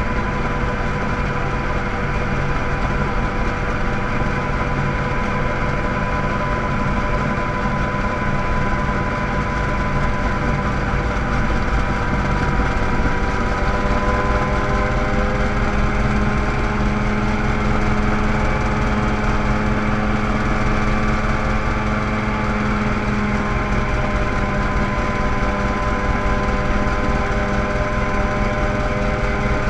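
Mosquito ultralight helicopter in flight, heard from its open cockpit: a steady engine and rotor drone that dips slightly in pitch about halfway through as it descends toward the ground.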